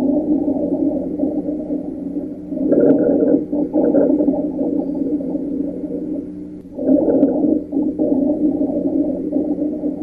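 Lung sounds with rhonchi: low-pitched, continuous rumbling breath sounds that swell with each breath, about every four seconds. Rhonchi are a sign of secretions or narrowing in the larger airways.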